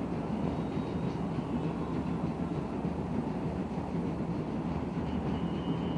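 Steady low stadium ambience on a football match broadcast, a dense noise with no clear individual sounds.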